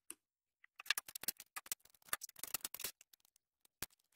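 Small metal parts handled on a wooden workbench: a dense run of light clicks and rattles for about two seconds, then a couple of single clicks near the end.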